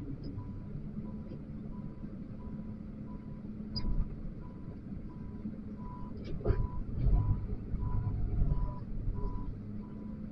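XCMG wheel loader's diesel engine running, with its reversing alarm beeping steadily about one and a half times a second. A sharp knock comes about four seconds in and a louder clunk at about six and a half seconds, and the engine revs up for a second or so after it.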